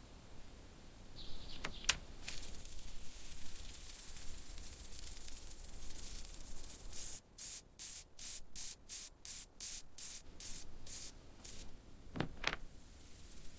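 Spraying hiss: a continuous spray for several seconds, then about a dozen short spray bursts in quick succession, roughly three a second. A couple of short knocks sound near the start and again near the end.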